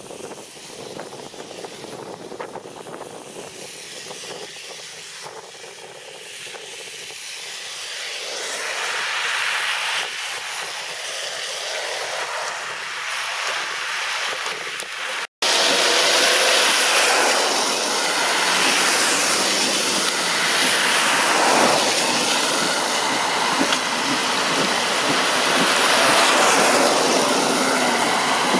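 Cars driving through shallow floodwater, their tyres hissing and splashing as they pass. The sound cuts out for a moment about halfway through, then comes back louder.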